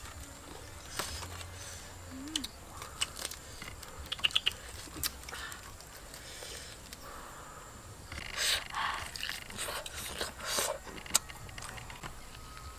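A knife cutting and scraping through grilled pork ribs, with sharp clicks and knocks, along with biting and chewing on the meat.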